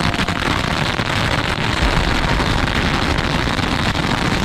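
A ball of about 4,000 firecrackers going off in a bonfire: a dense, continuous rattle of rapid bangs with no let-up.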